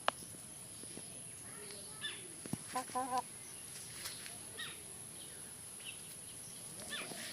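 Faint farmyard chicken sounds: scattered short calls and chirps, with one brief warbling call about three seconds in, over a steady low hiss.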